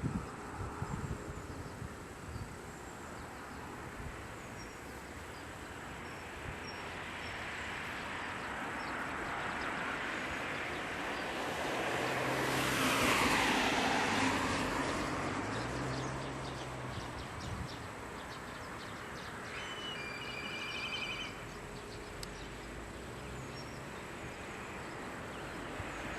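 A road vehicle passing by: a steady rushing sound that swells to a peak about halfway through and then fades away.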